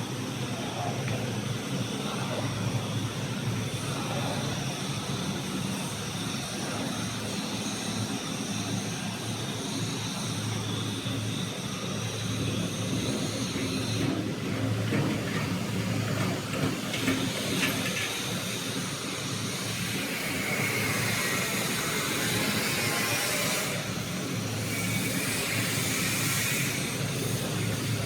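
GWG-30 stainless-steel universal powder grinder running steadily, a continuous motor hum under a grinding whir. About halfway through the sound turns rougher and brighter.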